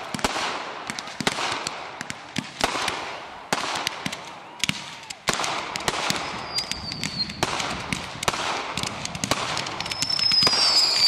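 Fireworks going off in quick succession: many sharp bangs and crackles, with a high whistle about six and a half seconds in and another near the end.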